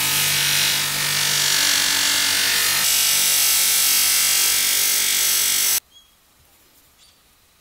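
Bench grinder fitted with a buffing wheel running, with the steel screwdriver shank held against the spinning wheel to polish it: a steady motor hum under a loud hiss. It cuts off suddenly near the end, leaving near silence.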